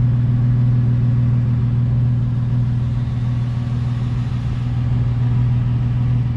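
Toyota FJ Cruiser's 4.0-litre V6 idling, heard from under the vehicle near the exhaust tailpipe: a steady low hum with no revving.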